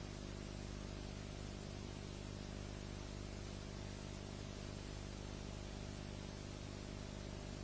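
Steady hiss with a low electrical hum underneath: the background noise of the recording itself, with no music or speech.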